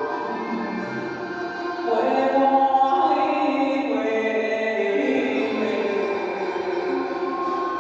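A recorded song with a sung melody over instrumental backing, which gets louder about two seconds in.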